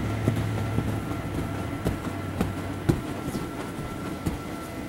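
Electric inflator blower of an inflatable bounce castle running steadily with a constant hum, with a handful of soft thumps from a child bouncing on the inflated vinyl floor, the loudest about three seconds in.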